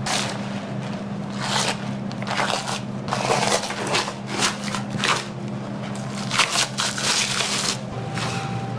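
Beef ribs being grilled and handled: irregular crackling and scraping bursts, several a second, over a steady low hum.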